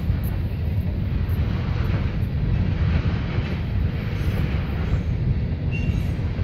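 CSX freight train rolling past, tank cars and covered hoppers giving a steady low rumble on the rails. A brief high squeal near the end.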